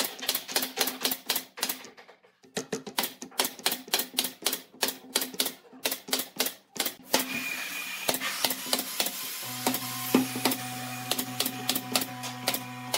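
Pneumatic nail gun firing nails in quick succession into pine lattice strips, about four shots a second, with a short pause about two seconds in. After about seven seconds the shots thin out and steady held tones with a low hum come in.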